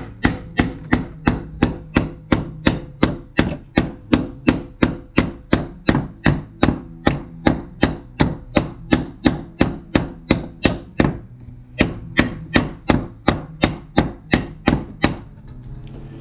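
Hammer driving a nail into a wooden porch deck board: quick, even strikes about three a second, with a short break about eleven seconds in, stopping about a second before the end.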